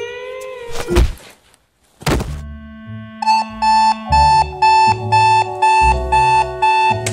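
Two loud hits about a second apart, then a digital alarm clock beeping about twice a second over background music.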